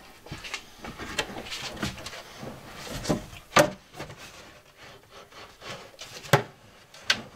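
A wooden slide-out pantry shelf being handled and shifted on its metal drawer slides: wood rubbing and scraping, with several sharp knocks, the loudest about three and a half and six seconds in.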